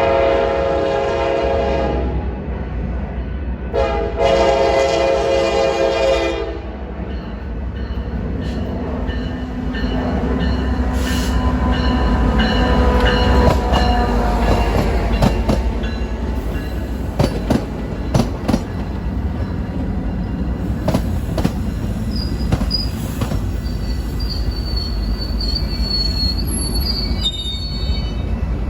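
Metra commuter train's multi-chime locomotive horn sounding two blasts, the second about two seconds long. Then the train rumbles past with its wheels clicking over rail joints and a high wheel squeal near the end.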